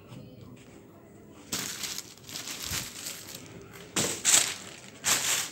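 Crinkling and rustling of a woven plastic sack and the plastic wrapping inside it as a hand rummages through it. The rustling comes in bursts, starting about one and a half seconds in and loudest near the end.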